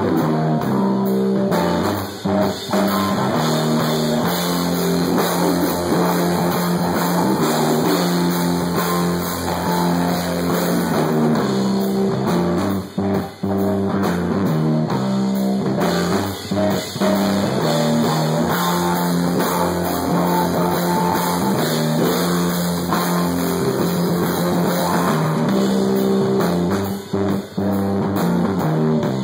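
Stoner-metal rock band playing live and loud: electric guitar riff on low, held notes with bass guitar and a drum kit.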